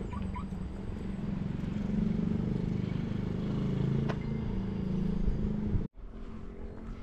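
Footsteps on a gravel road, with wind rumbling on the microphone while walking. The sound cuts out sharply for a moment near the end.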